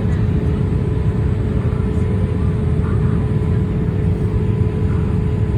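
Steady cabin noise of a Boeing 787 Dreamliner in flight: a continuous low rumble of engines and airflow, with a constant mid-pitched hum over it.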